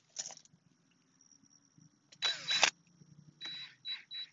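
DeWalt cordless drill with a hole saw run in short bursts against the house wall, a faint high motor whine coming and going between them.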